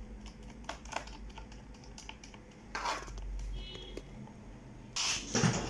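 Small clicks, taps and a scrape of hands and a small tool working on the aluminium bottom cover of an HP 450 G6 laptop during reassembly. About five seconds in comes a louder clatter with a low knock as the laptop is handled.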